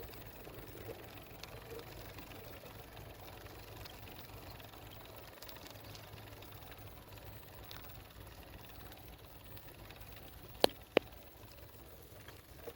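Faint, steady low hum of background noise, broken near the end by two sharp clicks about a third of a second apart.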